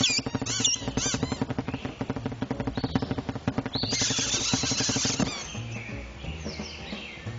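Cartoon soundtrack: fast, rhythmic music with chirping, bird-like sound effects in the first second or so, and a brief hissing burst about four seconds in.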